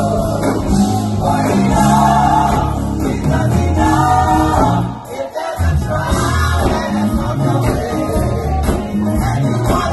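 Gospel choir singing live with instrumental accompaniment, strong low notes under the voices. The music drops away briefly about five seconds in, then comes back in full.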